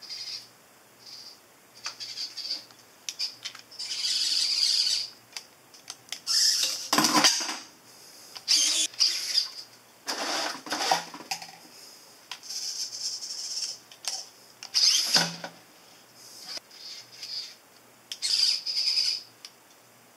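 Hobby servo motors of a 3D-printed robot arm whining in short high-pitched bursts as the arm moves and the claw grips. Three louder, fuller bursts of mechanical noise come about 7, 10 and 15 seconds in.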